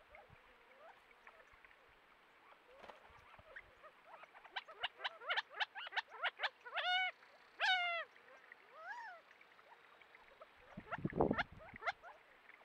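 Quail calling: a quick run of short rising chips, then two longer calls with a bending pitch and a few softer ones. A low, rough sound follows near the end.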